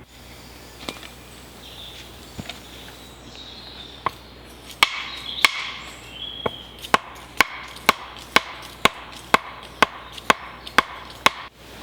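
A sharpened wooden post being driven into the ground by repeated blows: a few scattered knocks, then from about five seconds in a steady run of about a dozen sharp strikes at roughly two a second, stopping just before the end.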